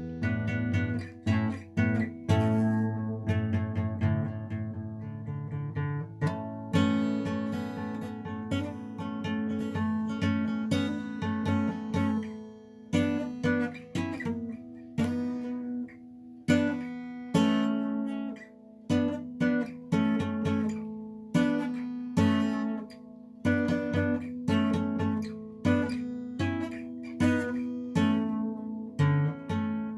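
Acoustic guitar strummed and picked, playing chords with a steady rhythm and ringing strings.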